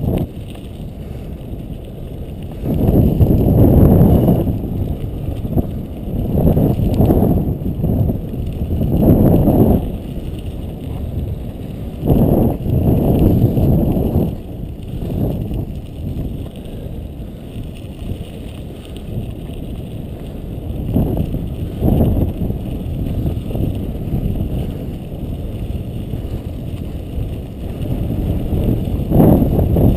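Bicycle rolling fast downhill on a snowy dirt road, heard as a low rumble of wind and road noise on the camera's microphone that surges in irregular gusts.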